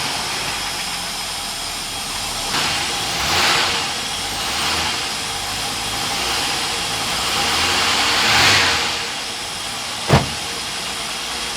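Holden VS Commodore's 3.8-litre L36 V6 running unevenly at idle with a misfire, which the owner suspects comes from a worn camshaft. It is blipped up twice, and there is a single sharp click near the end.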